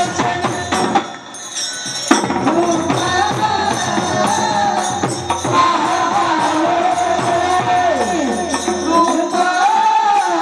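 A woman singing a Marathi folk-devotional song, her melody rising and falling, over steady jingling percussion like a tambourine or small cymbals. The sound dips briefly about a second in.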